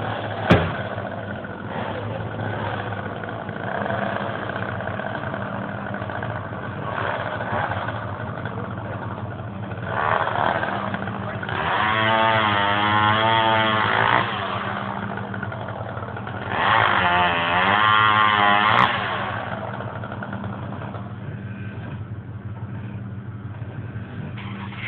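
A chainsaw revved hard twice, each burst two to three seconds long with a wavering pitch, over a steady engine idle. A sharp click comes near the start and another at the end of the second burst.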